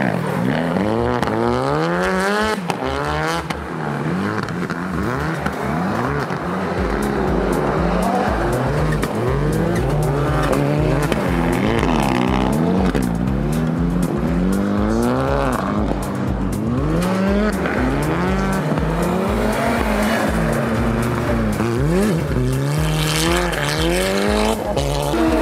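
Rally car engine revving hard on an ice track. The pitch repeatedly climbs and drops as the driver works through the gears and lifts off the throttle.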